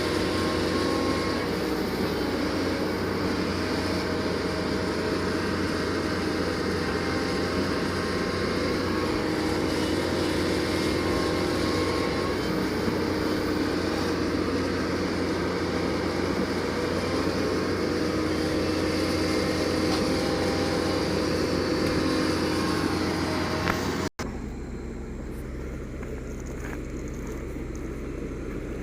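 Doosan DX225LCA excavator's diesel engine running steadily, a continuous mechanical drone with steady tones. About 24 seconds in, the sound cuts off abruptly and switches to a quieter, steady engine hum.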